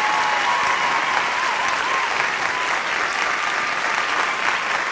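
A crowd applauding steadily, with a few wavering whistles over the clapping.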